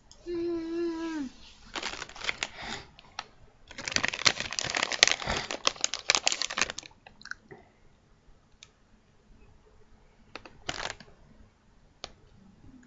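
A brief pitched vocal note at the start, then a plastic candy bag crinkling and rustling as it is handled, in two stretches with the longer, louder one in the middle, followed by a few scattered clicks.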